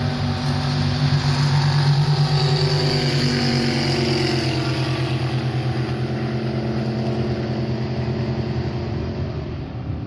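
Racing jet boat engine running hard at full throttle down the course, a steady loud drone with the hiss of its spray. It is loudest about two seconds in, then eases slightly in level and pitch.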